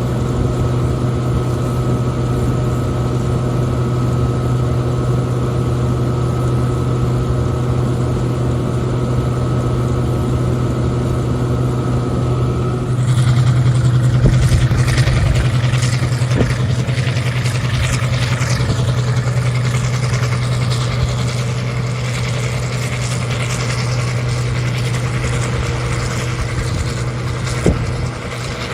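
A heavy machine's engine running steadily at constant speed. About halfway through, a louder rushing, rattling mechanical noise joins in and carries on over the engine.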